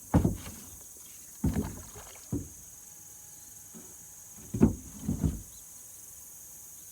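A few short splashes and knocks in pond water, in four separate bunches, over a steady high insect hiss.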